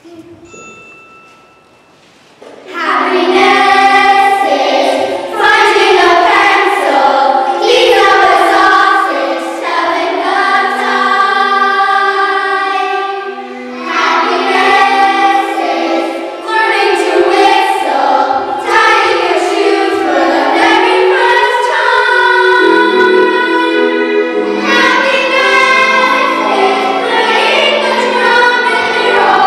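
A group of girls singing a song together. A short pitched note sounds at the start, and the singing begins about two and a half seconds in.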